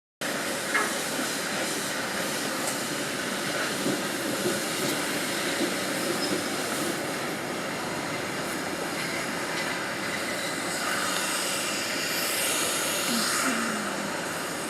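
Shipyard ambience: a steady industrial hiss and din, broken by a few sharp metallic knocks and brief squeals near the end.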